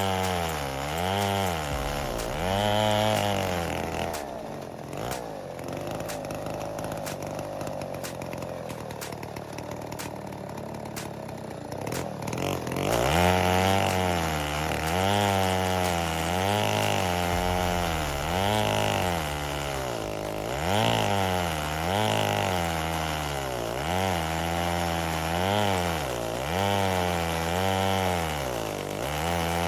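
Big 105cc two-stroke chainsaw (Neotec 8105) running hard in an Alaskan chainsaw mill, ripping a slab from a marri log. Its engine pitch rises and falls in a regular swing about every second and a half as the cut loads it. Through the middle stretch it runs steadier and lower.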